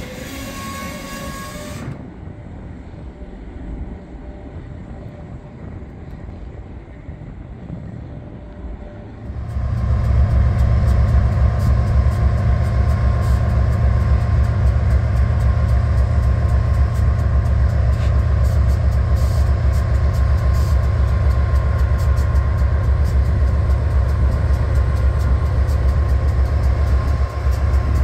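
Tank cars rolling past with a steady wheel squeal for about two seconds. Then, about nine seconds in, the loud steady rumble of a lead consist of BNSF GE diesel locomotives starts up as they approach and holds until the lead unit is alongside.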